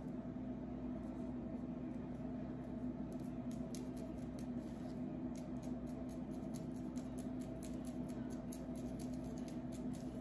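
Long fingernails scratching a dandruff-flaked scalp through thick, dry hair: a dense run of quick, crackly scratches that grows busier after a few seconds, over a steady low hum.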